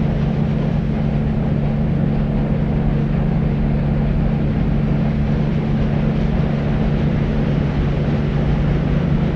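Steady, unchanging deep white noise, a dark hiss weighted heavily toward the bass with little treble.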